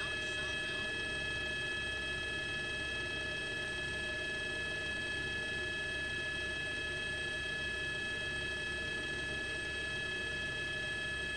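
A steady high-pitched whine, several pitches held together, over a low hum; nothing changes.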